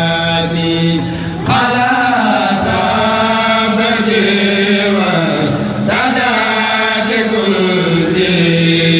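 A Senegalese kourel, a group of men, chanting a Mouride xassida together without instruments. The voices hold long notes that glide between pitches, with breaks between phrases about a second and a half in and again about six seconds in.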